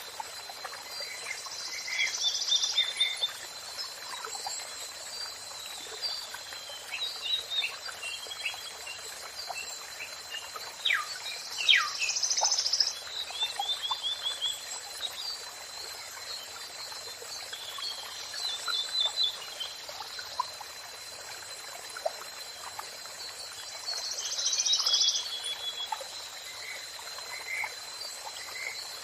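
Songbirds singing: quick chirps, rapid trills and sharp falling whistles, with louder flurries every several seconds, over a steady background hiss and a thin continuous high tone.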